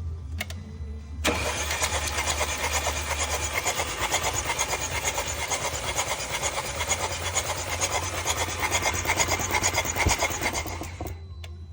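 A Mercedes engine with a leaking fuel injector being started: about a second in, a loud, rapid mechanical chatter begins and runs for about ten seconds before stopping abruptly.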